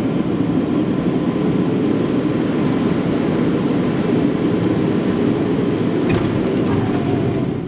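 Steady engine and airflow noise heard inside the cabin of a small private plane rolling on the ground after landing.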